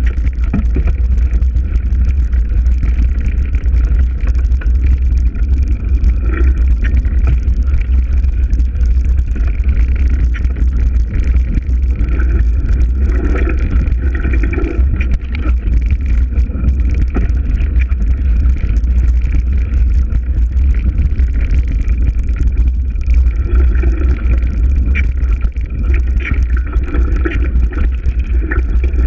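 A breeze blowing through trees, with a steady low rumble of wind on the microphone.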